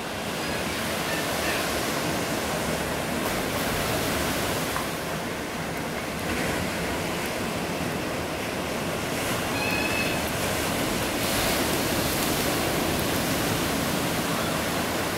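Ocean surf: waves breaking and washing in a steady rushing noise, a little louder in the second half.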